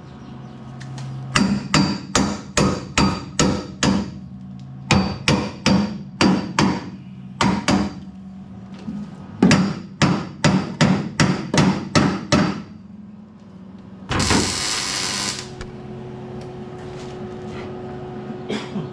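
Hammer blows on metal, a run of sharp strikes about two a second in several groups, each with a brief ring. Near the end comes a short loud hiss, then a low steady hum.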